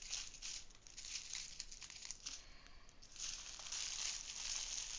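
Plastic packaging crinkling and rustling as it is handled, with a quieter stretch partway through. It comes back louder and steadier from about three seconds in.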